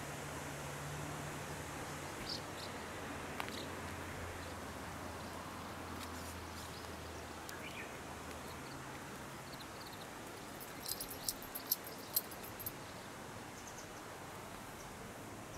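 Outdoor rural ambience: a steady even hiss with a faint low hum in the first half and a few short, faint high chirps. About eleven seconds in comes a quick run of sharp clicks.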